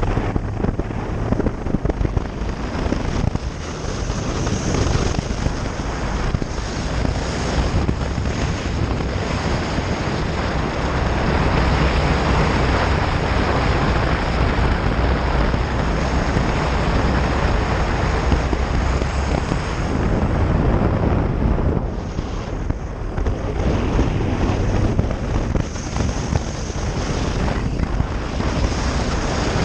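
Honda Varadero V-twin motorcycle riding along a gravel road: a steady engine drone under wind rushing over the microphone, easing slightly about three quarters of the way through.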